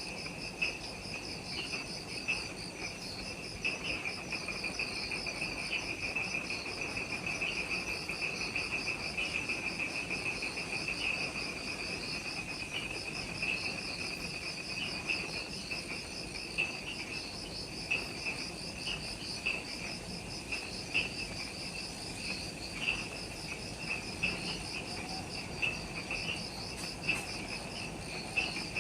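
Chorus of forest insects: a continuous high, rapidly pulsing trill over a lower steady drone that carries repeated louder chirps about once a second.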